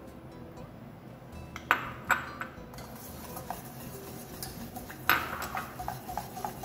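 Wire whisk stirring in a stainless steel saucepan, clicking against the pan, with a few sharp knocks of utensils on the pan about two seconds in and again about five seconds in. Sweetened condensed milk is being whisked into hot sugar-and-glucose syrup.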